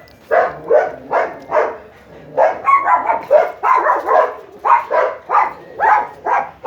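A dog barking over and over in short, quick barks, about two or three a second.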